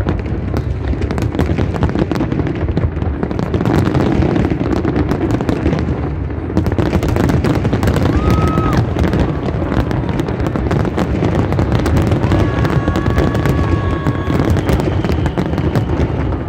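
Aerial fireworks display in full barrage: a dense, continuous mix of deep booms from exploding shells and sharp crackling. A brief steady high tone sounds twice in the second half.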